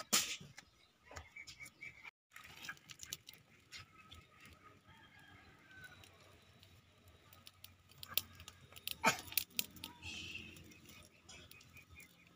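Hand-plucking feathers from a freshly killed bird, then a small open wood fire crackling with scattered pops as the plucked bird singes over the flames, a few sharper pops near the end.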